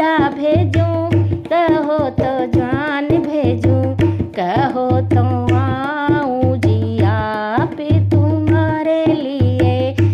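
Banna geet, a Hindi wedding folk song: a wavering, ornamented vocal melody over a steady hand-drum beat.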